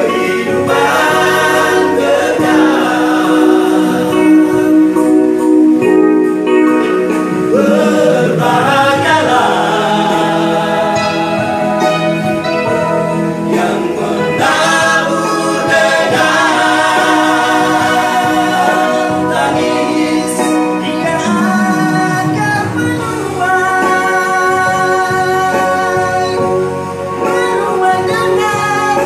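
A men's vocal group singing together in several voice parts, a continuous sung passage.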